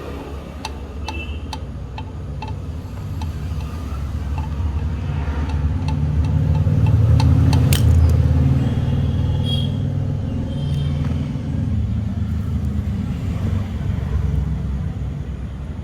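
A motor vehicle passing by: a low rumble that builds to a peak about halfway through and then fades away. A few light metallic clicks sound in the first couple of seconds.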